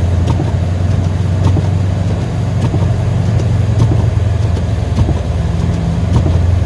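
Car engine running steadily, heard as a low, even hum with faint scattered ticks over it.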